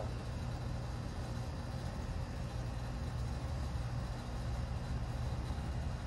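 Carrier R22 packaged air-conditioning unit running in cooling, a steady low hum from its compressor and fans, shortly after start-up while its refrigerant pressures balance out.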